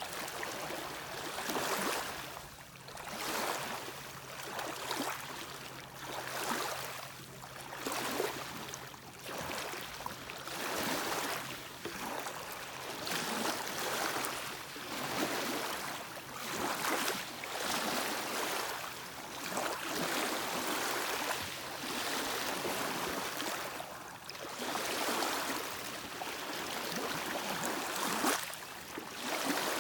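Small lake waves lapping and washing against the shore, in repeated surges every second or two, over a faint steady low hum.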